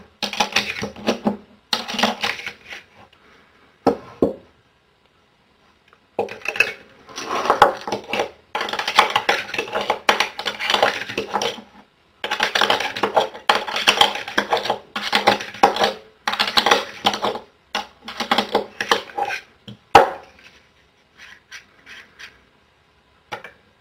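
Rapid plastic-and-metal clicking and clacking of an UpLULA pistol magazine loader as .45 cartridges are pressed one after another into a pistol magazine. The clicking comes in runs of a few seconds with short pauses between them, and thins to a few scattered clicks after about twenty seconds.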